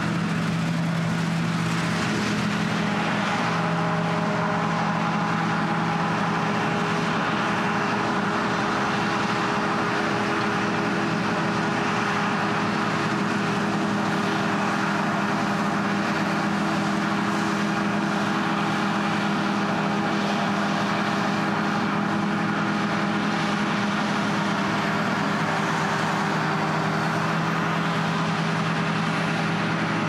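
John Deere combine harvester working, its engine and threshing machinery running steadily: several low, even hums over a broad rushing noise.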